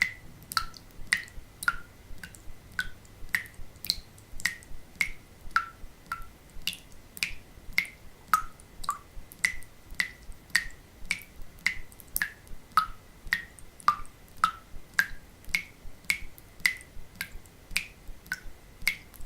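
Water dripping fast into a sink: a steady run of drops, about two a second, each landing as a short pitched plip, some a little higher in pitch than others.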